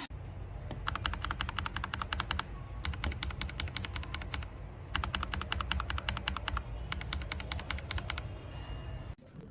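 Typing on a keyboard: four runs of rapid key clicks, about ten strokes a second, with short pauses between runs, over a steady low hum.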